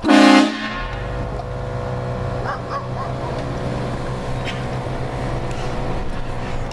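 Train horn blasting, loudest for about the first half-second, then a steady lower drone of held tones over a low engine hum.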